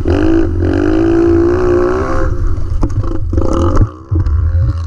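Dirt bike engine revving, its pitch rising and falling, then a few sharp knocks and a clatter about three seconds in; the engine keeps running after a brief drop.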